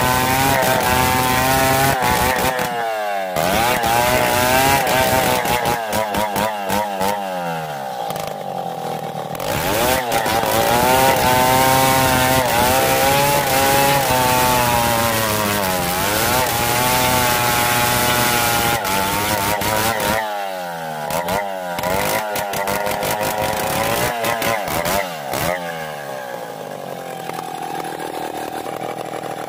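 Two-stroke chainsaw ripping lengthwise through a soft pulai (kayu susu) log. The engine pitch repeatedly sags under load and climbs again as the bar works along the cut. Near the end it settles to a lower, steadier note as the saw is lifted out of the wood.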